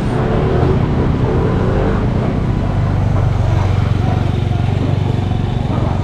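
Motor scooter traffic in a narrow street-market lane: a steady low engine hum, with people's voices in the first couple of seconds.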